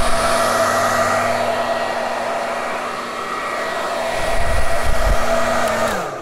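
Handheld hair dryer blowing steadily, its motor hum and air rush getting louder and softer as it is moved. Near the end it is switched off, and the pitch falls as the motor spins down.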